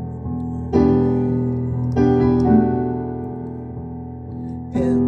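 Instrumental break in a song: keyboard chords struck and left to ring, with new chords about a second in, two seconds in and again near the end, each fading slowly.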